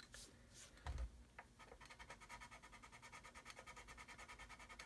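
A soft knock about a second in, then faint, quick, even rasping of a sanding stick rubbed back and forth over the plastic bow of a model hull, about five strokes a second.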